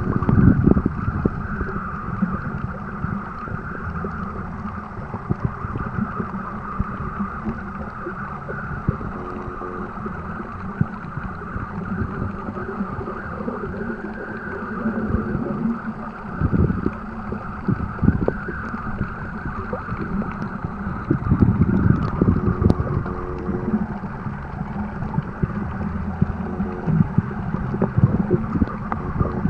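Muffled underwater water noise picked up by a submerged camera: a steady low rumble with a hiss above it, swelling in louder surges now and then.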